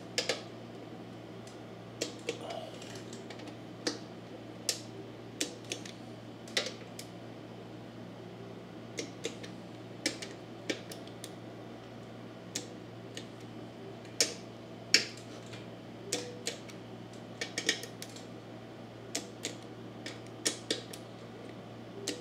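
Torque wrench ratcheting and clicking on the Kawasaki FJ180V's side-cover bolts as they are tightened to 80 inch-pounds in a crisscross pattern: irregular sharp metal clicks, some in quick runs, the loudest about fifteen seconds in, over a steady low hum.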